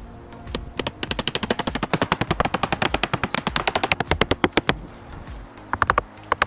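Hammer blows on wood in a fast, even run of about ten strikes a second for about four seconds, then a few more strikes near the end.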